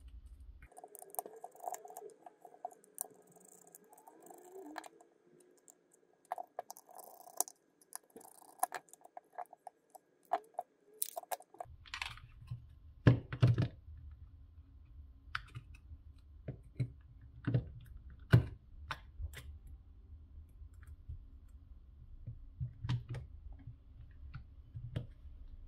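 Scattered small clicks and taps of hard plastic as Bose QC35 headphone ear cups are handled, unscrewed with a micro screwdriver and their back covers taken off.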